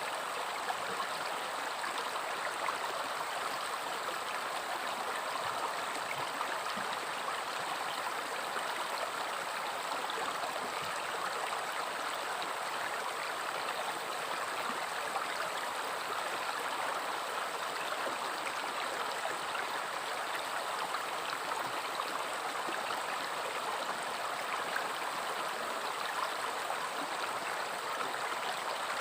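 River water flowing steadily over rocks, a continuous rushing with a light bubbling texture.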